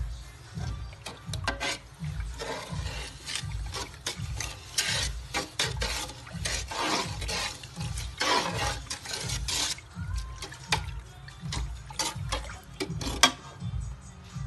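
Water poured into a pan of white powder and stirred with a metal spoon: a wet, splashy rush for several seconds, then sharp clicks of the spoon against the pan, the loudest near the end. Background music with a steady beat plays throughout.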